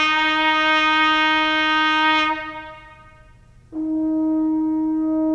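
A trumpet holds a concert E flat for about two seconds, loud and bright with many overtones. A moment later a French horn starts the same note, with a smoother, mellower tone.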